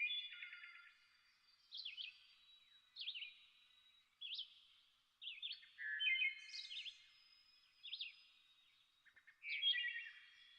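Birds singing: short, high-pitched chirping phrases repeating about every second or so, some overlapping, with one louder burst near the end.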